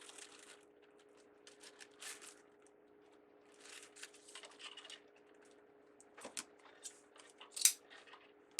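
Wired ribbon rustling and crinkling in short bursts as it is folded into bow loops and tails, with a sharper crackle near the end, over a faint steady hum.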